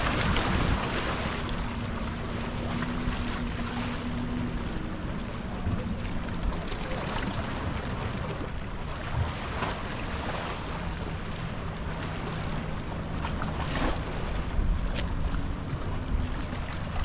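A boat's motor running with a steady low hum that drifts slightly in pitch, under wind buffeting the microphone and waves washing against the jetty rocks.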